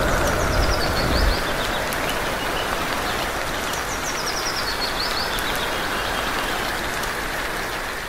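Steady heavy rain, an even hiss throughout. A low rumble under it stops about a second in, and two short runs of faint high falling chirps sound over the rain.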